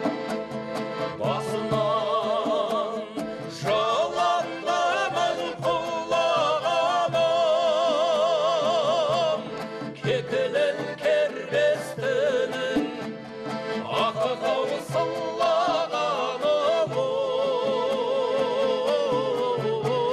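Kazakh traditional folk music: a voice singing long, held notes with a wide vibrato over an instrumental accompaniment of regular sharp strokes.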